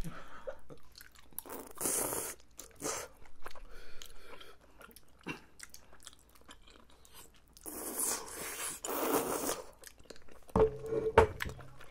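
Close-miked eating of spicy tteokbokki: wet chewing and mouth clicks, broken by a few long hissing slurps, the longest about two seconds long, some eight seconds in.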